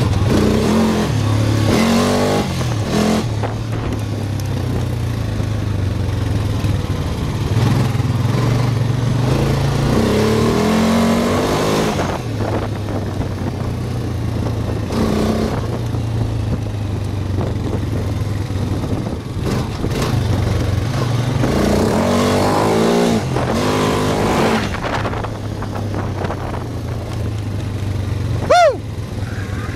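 ATV engine running while riding, revving up and down in several swells. Near the end there is a short, loud, high-pitched chirp that slides down in pitch.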